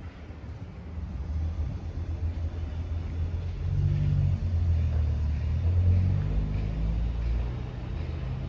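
A Ford Transit refrigerated van running with a low, steady rumble. It grows louder about three and a half seconds in.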